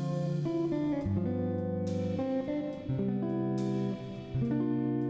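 Background music on guitar: plucked and strummed notes and chords.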